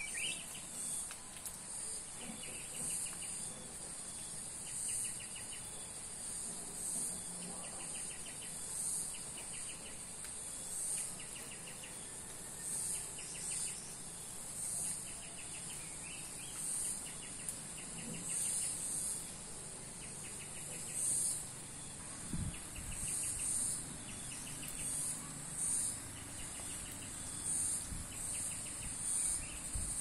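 Insects calling: a steady high-pitched drone that swells about every two seconds, and a rapid ticking trill that repeats about every two seconds.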